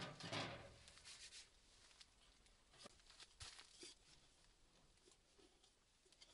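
Faint rustling, light metal scraping and small clicks as stainless chimney pipe sections are fitted onto a small tent wood stove. It is loudest in the first half-second, then just scattered soft clicks and rustles.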